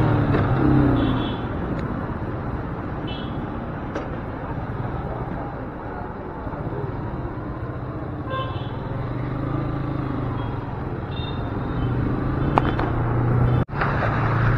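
Motorcycle engine running under busy street traffic noise, with several short vehicle horn beeps.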